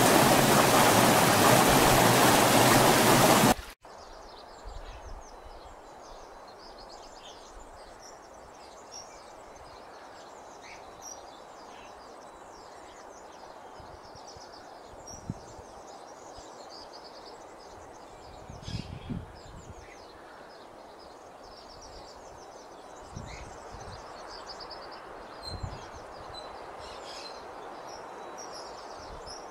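Mountain creek rushing loudly over rocks for the first few seconds, then cut off abruptly. After it comes a much quieter woodland ambience with many birds chirping and singing, and a few soft low thumps.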